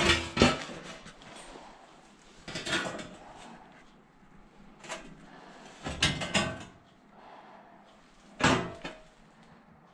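Formed sheet-steel repair panels being handled and shifted on the shop floor: a handful of separate clanks and scrapes of thin metal, a second or two apart.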